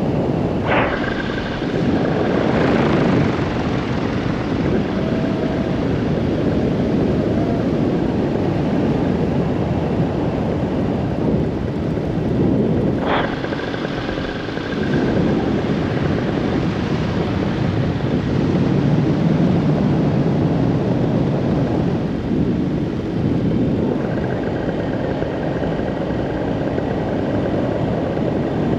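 Paramotor engine and propeller running steadily under a haze of wind noise, with two brief clicks, one about a second in and one about thirteen seconds in.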